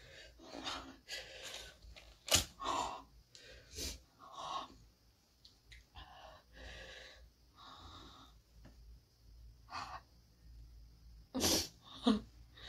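A woman's sharp, hissing breaths in and out through an open mouth, short and repeated, from the burn of hot chilli sambal, with one sudden loud burst about two seconds in and two more near the end.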